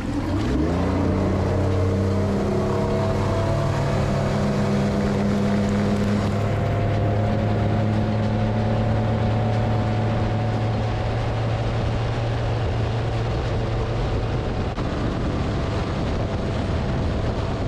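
Suzuki four-stroke outboard motor accelerating hard, rising in pitch for the first couple of seconds as the boat gets up on plane, then running steadily at cruising speed. The rush of spray and water off the hull runs under it.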